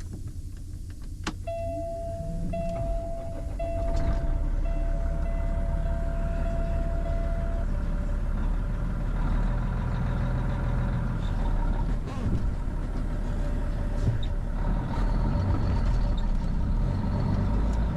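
Semi-truck diesel engine restarted after stalling in snow: it catches about a second and a half in and runs under load, while a dash warning buzzer sounds in a steady broken tone for about six seconds.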